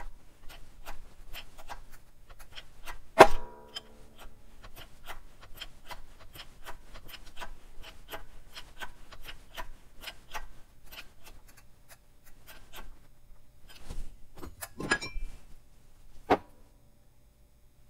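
Shop press forcing a wastegate bushing into an N54 turbine housing, with a light ticking about four times a second, a loud metallic clank that rings about three seconds in, and a few more knocks near the end. There is no squeaking: the bushing is going in straight and is not bending.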